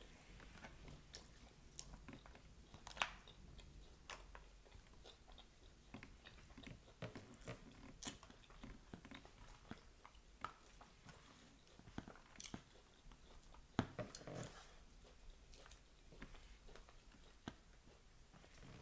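Quiet close-miked chewing and crunching of a fried-chicken Caesar salad with croutons, with scattered soft clicks of a fork against the plastic takeout tray; a few louder crunches stand out.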